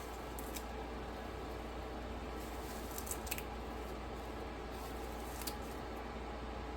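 A few faint, brief clicks over a steady low hum and hiss.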